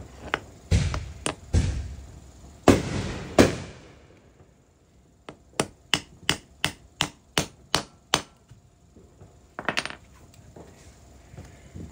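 Hammer blows on the metal of a sterndrive drive shaft U-joint during reassembly. First come four heavy strikes with some ringing, then a quick run of about eight lighter taps, roughly three a second, and a short double hit near the end.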